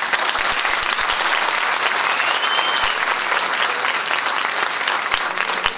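Audience applauding, dense steady clapping, with a short rising-and-falling whistle about two seconds in.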